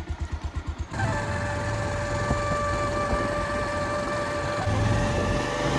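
Motorcycle engine idling with a quick even pulse, about ten beats a second; about a second in it gives way to the steady sound of riding along, a low engine rumble with wind hiss and a constant high whine.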